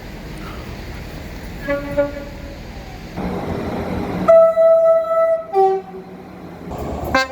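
Train's two-tone horn: a loud, steady high note held for about a second, then a short lower note. The rumble of the train is heard beneath it, and a faint horn note sounds about two seconds in. Another loud blast begins right at the end.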